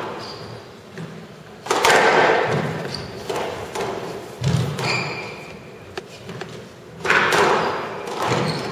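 Squash ball being struck by rackets and smacking off the court walls during a rally, a sharp hit every couple of seconds with the loudest about 1.7, 4.4 and 7 seconds in. Each hit echoes through the hall.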